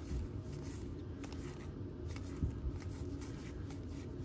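Baseball trading cards being slid and flipped through by hand, with soft rustling and a few light clicks, and a dull bump a little past halfway.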